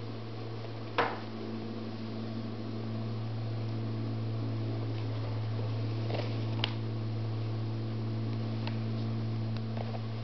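A flat shoelace is pulled and threaded through a sneaker's eyelets, making a few light clicks and rubs, with the sharpest click about a second in. A steady low hum sits underneath.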